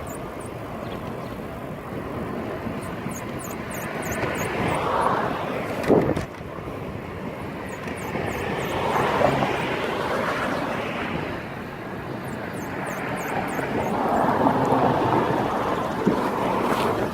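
Cannondale Bad Boy bicycle being ridden, with wind rushing over the microphone in slow swells. Short runs of rapid, faint, high-pitched squeaks come a few seconds in and again near the end, which would be the squeak the rider is trying to find.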